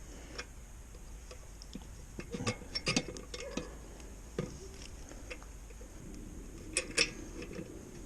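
Scattered small metal clicks and taps of washers and hardware being worked onto a bolt by hand, with two sharper clicks about seven seconds in.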